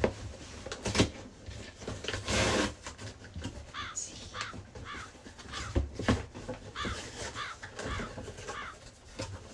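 Packaging being handled and torn open, with two loud noisy bursts in the first few seconds. Then a crow caws about eight times in a row, roughly two caws a second, mixed with small clicks of handling.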